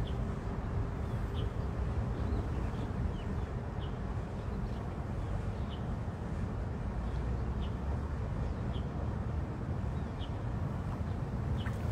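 Steady outdoor background rumble, mostly low in pitch, with a faint short high chirp about once a second.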